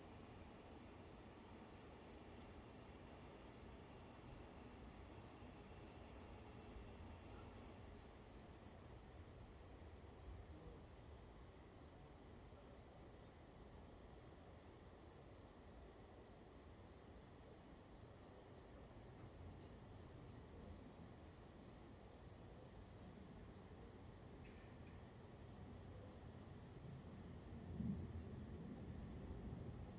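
Cricket chirping steadily in a fast, even pulse over a faint low rumble, with a short low thump near the end.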